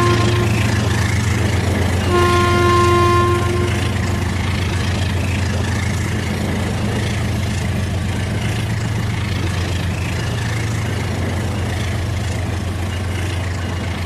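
Rail King remote-control toy train running on its track with a steady motor hum and fine rattle. Its horn toots twice: a tone that cuts off about half a second in, and another of about a second and a half starting about two seconds in.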